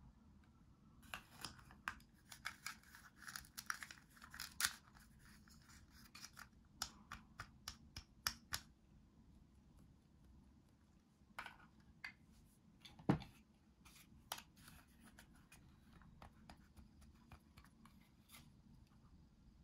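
Plastic toy vegetables with Velcro-joined halves being handled: a dense run of Velcro rasps and plastic clicks in the first few seconds, then scattered clicks and taps. The loudest is a single knock about 13 seconds in.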